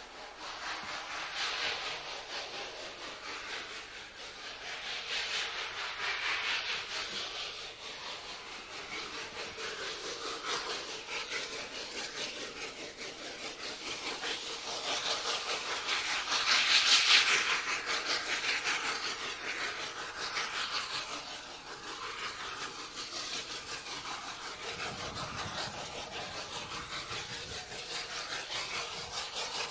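Cogwheel rack-railway steam locomotive working out of a tunnel with its carriage: a fast, rasping run of exhaust beats and steam hiss that swells and fades several times, loudest a little past the middle.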